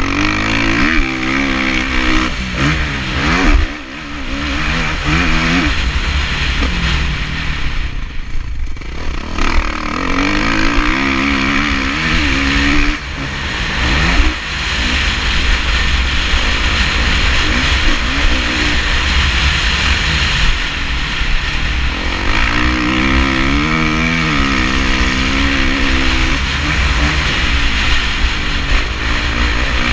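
Kawasaki KX450F four-stroke single-cylinder motocross engine under way on a dirt track, its pitch rising and falling again and again as the throttle is worked, with short let-offs about 4 and 13 seconds in. A steady wind rumble runs underneath on the helmet camera.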